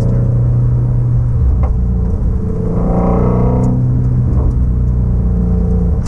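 2016 Shelby Mustang GT350's 5.2-litre flat-plane-crank V8, heard from inside the cabin, running steadily at low revs at an easy cruise, with a low road rumble underneath.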